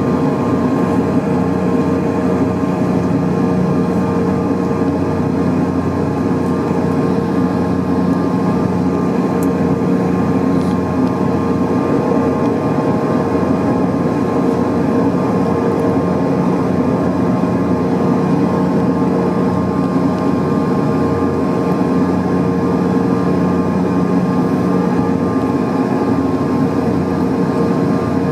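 Cabin noise inside a CRJ-900 regional jet while it taxis: the rear-mounted GE CF34 turbofans running as a constant hum with several steady tones.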